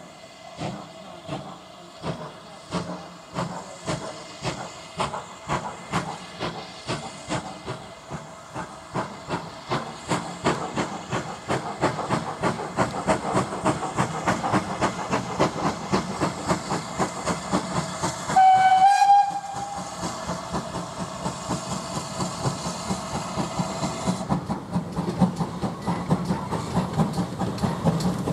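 Steam locomotive getting a train under way, its chuffing exhaust beats quickening and growing louder as it approaches, over a steady steam hiss. It gives one short whistle blast about two-thirds of the way through.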